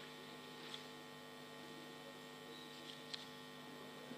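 Faint, steady electrical mains hum with two faint ticks, about a second in and about three seconds in.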